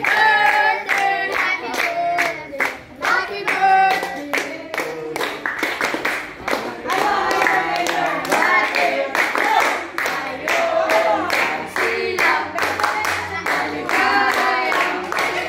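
Several people singing a birthday song together while clapping their hands steadily in time.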